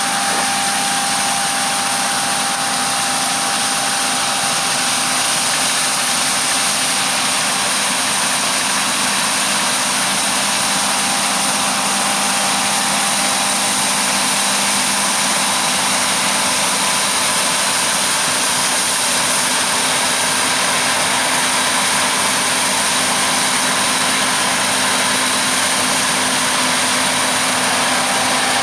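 Large farm machinery running steadily: an unchanging engine drone with a few constant tones and a strong high hiss.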